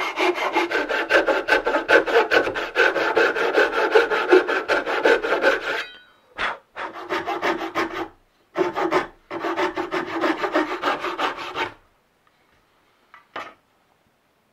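Hand saw cutting wood in rapid back-and-forth strokes, then a few shorter bursts of sawing that stop about twelve seconds in. A faint single tick follows.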